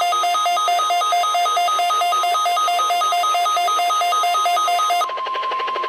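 NOAA Weather Radio's steady warning alarm tone, sounded for a required weekly test, with a fast high-low two-note beeping alternating about four times a second over it. The beeping stops about five seconds in, leaving the steady alarm tone alone.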